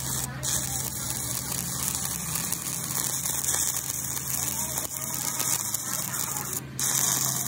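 Stick (shielded metal arc) welding: the electrode's arc crackling steadily, with a steady low hum underneath.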